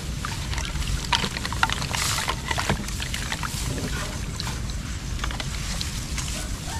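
Small boat under way through swamp water: a steady low rumble with scattered knocks and splashes.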